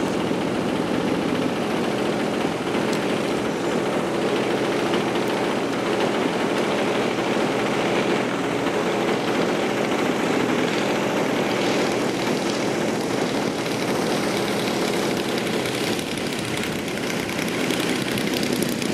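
Engine of a radio-controlled model aerobatic airplane running at a steady, even pitch as the plane comes in to land.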